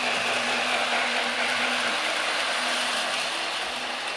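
Lionel toy train with a steam locomotive running around its three-rail track: a steady whirring rumble of the electric motor and wheels on the rails, a little louder in the middle.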